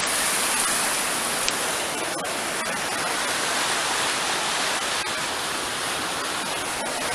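Flooded river rapids below the bridge rushing, a steady roar of water with a few faint taps on top.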